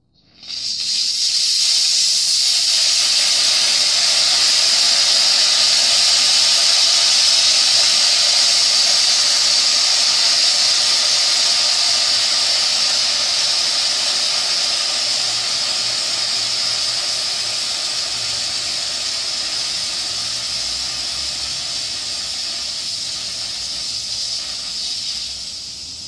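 Steam jetting from the open main steam valve of a small 3-inch vertical model boiler, with the burner off. It is a loud, steady hiss that starts abruptly, slowly weakens as the boiler's pressure falls, and drops away near the end.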